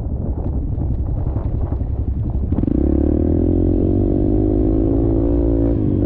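Dirt bike engine running under way. It is rough and low at first, then about two and a half seconds in the revs jump and hold at a steady, higher pitch.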